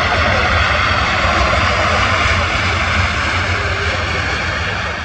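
An Airbus A319's CFM56 jet engines running at high power in reverse thrust during the landing rollout: a loud, steady rushing jet noise with a low rumble beneath, easing off near the end.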